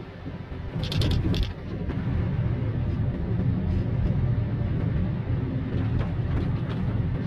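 Inside-cabin noise of a Daihatsu car driving in fourth gear on a wet road: a steady low rumble of engine and tyres that grows louder about a second in. A few brief sharp clicks come about a second in.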